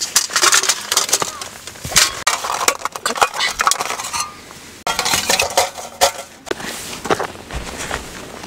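VERNE folding camp table being unfolded by hand: its fold-out legs clack and click as they swing out and snap into place, with handling rustles between the clicks.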